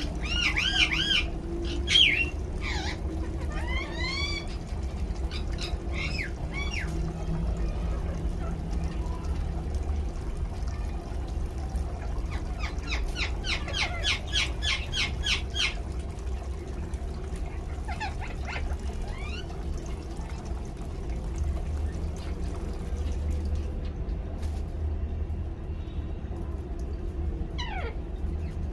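Ring-necked parakeet squawking in short, arching calls, with a fast run of repeated calls about halfway through, over the steady sound of its shower water running.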